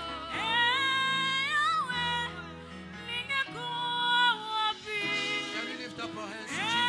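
Gospel worship song: a singer holding long notes that slide from one pitch to the next, over steady instrumental backing.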